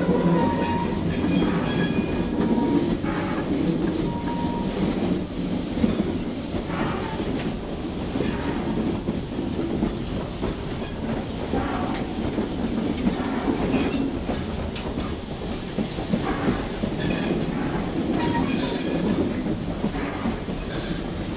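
Cab noise of a 1922 Baldwin 2-8-2 steam locomotive rolling slowly: a steady rumble with irregular clanks and knocks from the running gear and rails.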